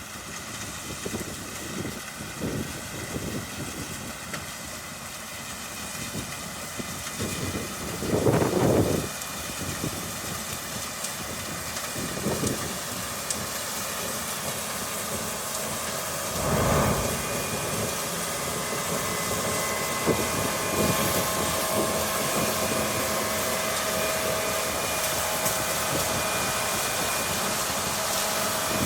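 Engine of harvest machinery running steadily, with two brief louder swells about eight and seventeen seconds in.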